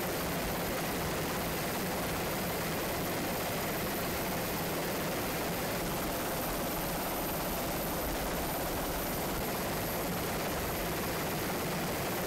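Steady, unchanging aircraft drone heard from aboard the filming aircraft, with no blast or impact standing out.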